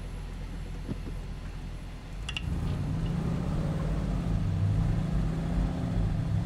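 Range Rover Sport (L494) engine working hard as the truck climbs a loose sand hill, rising in level about two and a half seconds in. A short click comes just before the rise.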